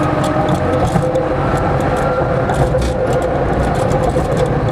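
Tram running along its track, heard from inside the car: a steady motor whine over the rumble of the wheels on the rails, with frequent light clicks.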